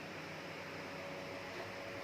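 Steady background hiss with a faint, even hum; no distinct sounds stand out.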